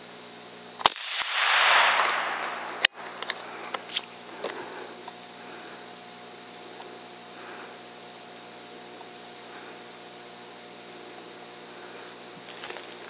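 .22 rifle firing two shots about two seconds apart, with a brief rushing noise after the first, over a steady high-pitched insect trill.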